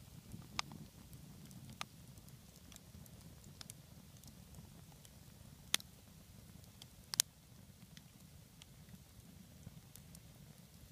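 Wood campfire crackling: scattered sharp pops from the burning logs, the loudest about six seconds in and a quick double pop about a second later, over a low steady rumble.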